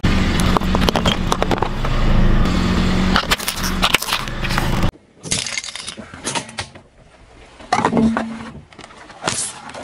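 A car tyre rolling slowly over brittle objects and crushing them, with dense cracking and crunching over a low engine hum. At first these are sticks of chalk. After a sudden cut about halfway through, shorter separate crunches come as the tyre rolls over more items.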